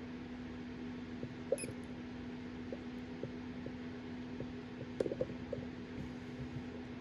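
Steady low electrical hum, like a fan or appliance, with a few faint short clicks and taps, the clearest about one and a half seconds in and again around five seconds in.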